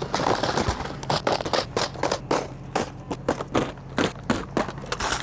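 Clear plastic tackle boxes being handled and stacked: an irregular run of clicks, knocks and rattles, several a second.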